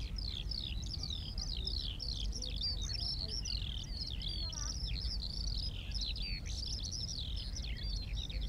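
Songbirds singing a dense, continuous run of high chirps and warbles, over a steady low rumble.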